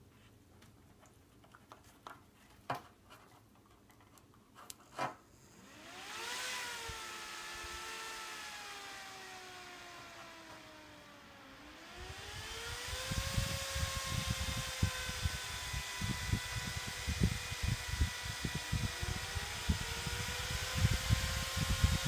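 Four Dell PowerEdge R710 server fans starting up on a fan controller. After a few clicks, the fans spin up with a rising whine about six seconds in and sag slightly in pitch. Near the middle they rise again to a louder, steady high-speed whine with a gusty rush of air.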